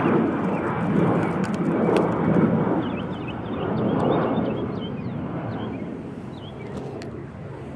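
Wind buffeting the microphone: a rushing noise that swells and eases in gusts, then dies down after about five seconds.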